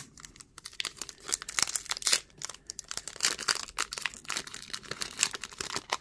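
The foil wrapper of a 2021 Topps F1 Flagship trading card pack being torn open along its top seam and crinkled in the hands, with dense, irregular crackling.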